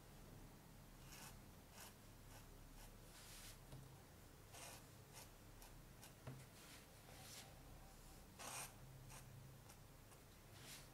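Faint scratching of a Hunt 101 flexible pointed steel dip nib on paper, heard as a series of short separate strokes as flourishes are drawn in ink. The loudest stroke comes about eight and a half seconds in.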